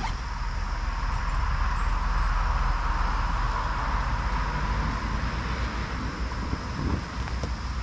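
A passing car's tyre and road noise swells over the first few seconds and fades away, over a steady low wind rumble on the microphone.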